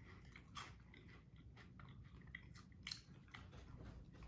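Spicy cheese balls being bitten and chewed: faint, irregular crunches.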